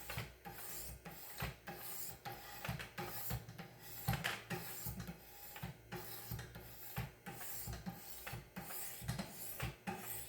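Abrasive stones on a Wicked Edge guided knife sharpener scraping along the steel edge of a VG10 Japanese chef knife, in short strokes roughly one to two a second.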